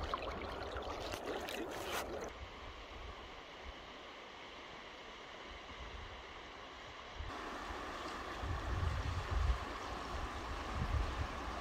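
River water flowing and lapping around a canoe, with a run of splashes in the first two seconds. Later come low rumbles of wind on the microphone.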